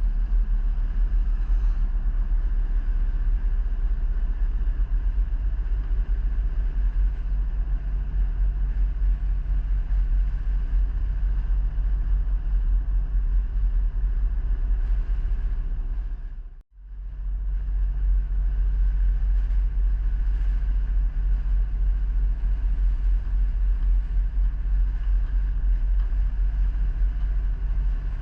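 Steady low rumble of a vehicle on the move, the road and engine noise heavy in the bass. It drops out abruptly for a moment a little past halfway and then resumes.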